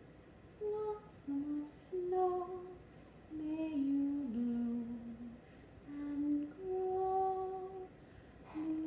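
A woman humming a slow, lullaby-like melody of held notes in short phrases, with a brief wavering sound near the end.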